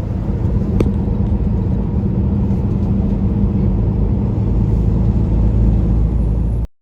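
Motor vehicle on the road: a steady rumble of engine and road noise that cuts off abruptly near the end.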